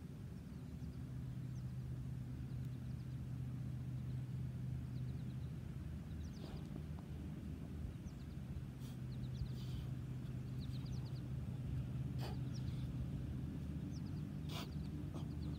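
A steady low mechanical drone with faint bird chirps over it. A few short, sharp knocks stand out, the loudest near the end.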